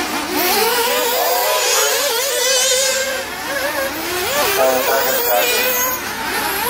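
Several nitro RC racing cars' small glow-fuel two-stroke engines running together, their high whines rising and falling as the cars accelerate and brake.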